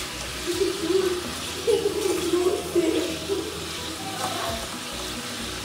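Chicken pieces sizzling in hot oil in a frying pan as they are turned with a spatula. A wavering pitched sound runs underneath for the first three seconds or so.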